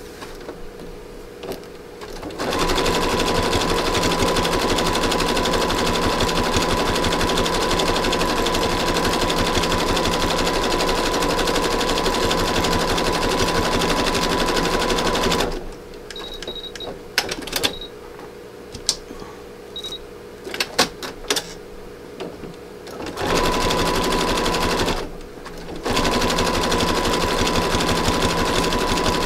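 Electric sewing machine stitching round a coil of fabric-covered rope, running in long stretches. It starts about two seconds in. Midway it stops for several seconds, with a few clicks and short beeps, then runs again with a brief pause near the end.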